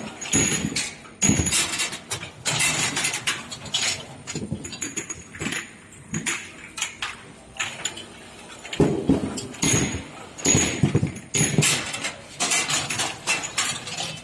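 Cylinder ultrasonic bottle washing machine running, with irregular bursts of hiss and many sharp clicks and knocks.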